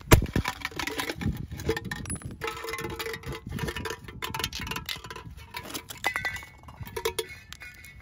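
A claw hammer strikes an emptied aerosol spray-paint can, the loudest hit right at the start. A run of metallic clinks, clanks and scraping follows as the claw tears and pries the thin metal can open, with short ringing notes from the can body.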